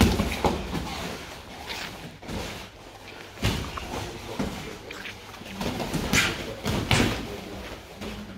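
Gloved punches and shin-guarded kicks landing during kickboxing sparring: a string of irregular slaps and thuds, about half a dozen, the sharpest right at the start and two more close together near the end.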